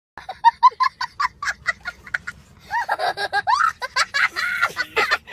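A man's meme laughing sound effect: a quick run of short, evenly spaced high 'ha-ha-ha' bursts for about two seconds, then a longer, wavering laugh whose pitch slides up and down, almost like cackling.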